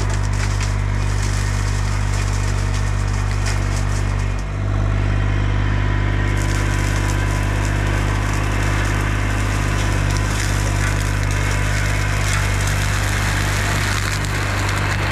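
Baumalight CXC530 excavator-mounted hydraulic brush mower shredding tree limbs, with dense cracking and splintering of wood over the steady run of the Bobcat E35 mini excavator's diesel engine. The crackle gets heavier from about six seconds in. The machine does not sound like it is struggling.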